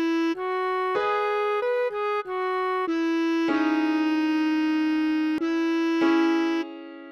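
Bass clarinet playing a slow single-line melody: several short notes, then one long held note in the middle, two more notes, and a short pause near the end.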